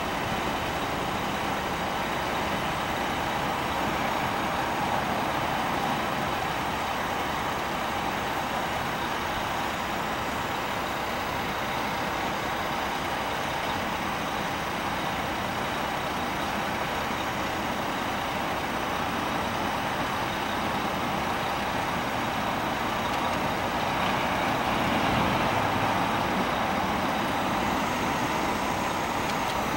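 Mack RD690S tank truck's E7 diesel engine idling steadily, growing a little louder for a few seconds near the end.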